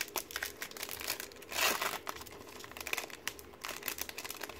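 Foil wrapper of a Pokémon Sun & Moon booster pack crinkling and tearing as it is ripped open by hand, a run of sharp crackles that is loudest about a second and a half in.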